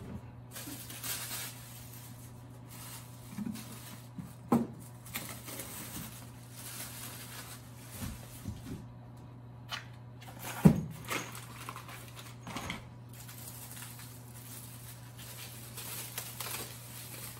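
Handling noises from unpacking office chair parts: plastic wrapping and cardboard rustling, with a few knocks of parts being set down, the loudest about ten and a half seconds in. A steady low hum runs underneath.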